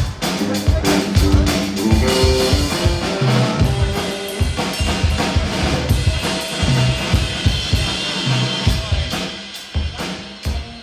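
Live band playing during a sound check: a drum kit with kick and snare hits driving a steady beat under pitched band instruments. The playing stops near the end.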